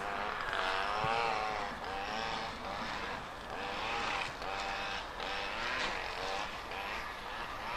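Intercity train, a Class 82 driving van trailer with a Class 90 electric locomotive, approaching at speed on curved track. A wavering whine from wheels and rails rises and falls repeatedly over a steady rumble.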